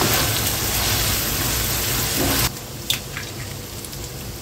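Minced beef sizzling loudly in hot oil in a frying pan as it is stirred with a wooden spoon. About two and a half seconds in, the sizzle drops to a quieter level, with a light click shortly after.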